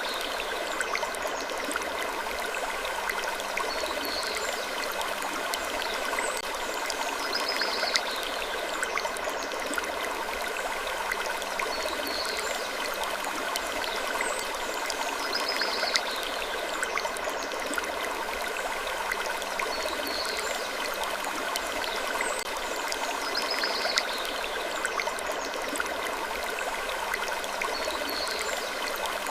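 Looped sleep ambience: a steady rushing noise like flowing water, with short high falling sounds that come back in a pattern repeating about every eight seconds.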